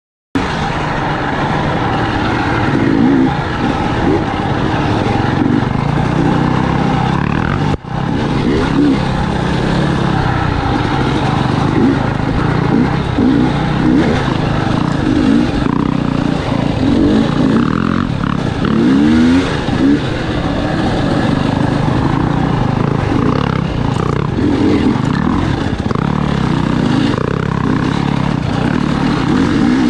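KTM enduro dirt bike engine revving up and down as it is ridden on a trail, picked up by the rider's helmet camera. The sound drops out briefly about eight seconds in.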